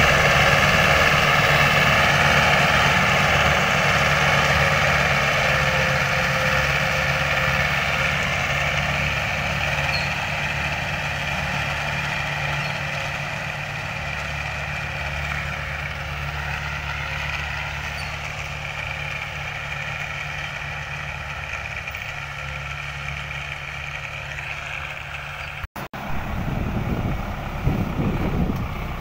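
Tractor diesel engine pulling a disc harrow under steady load, fading slowly as the tractor draws away. About 26 s in the sound breaks off briefly, and a second tractor pulling a plough is heard at close range.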